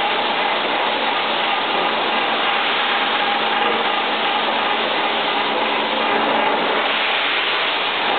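Harrison Alpha 500 CNC lathe running steadily under power: a constant mechanical noise with a steady whine through it.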